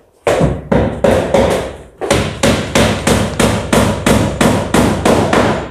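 Rapid, evenly repeated hammering: a mallet tapping a 60×60 ceramic floor tile down into its bed of cement and tile adhesive, about four to five blows a second, with a brief pause about two seconds in.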